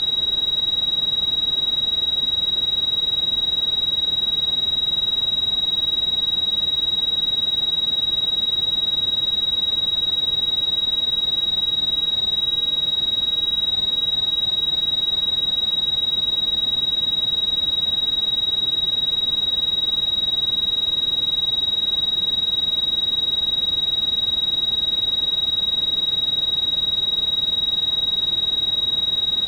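Synthesized tinnitus-masking sound: a single steady, high-pitched pure tone held without a break, over a faint hiss of pink noise.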